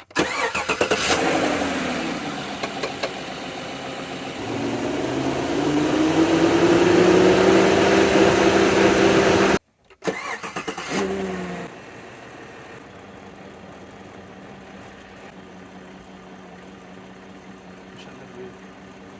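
A 2016 Chevy Silverado's 5.3L V8 starts up and runs with revs slowly rising. It cuts off abruptly about halfway through, then starts again and settles to a quieter steady idle.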